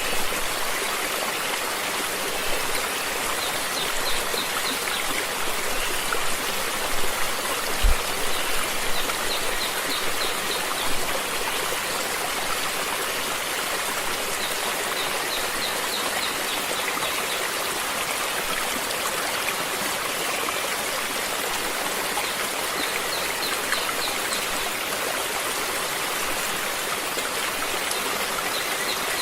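Stream water flowing and splashing steadily, with a short high trill, likely a bird, recurring every few seconds and a brief low thump about eight seconds in.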